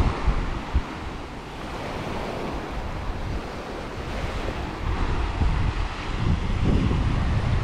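Small waves washing up onto a sandy beach, with wind buffeting the microphone.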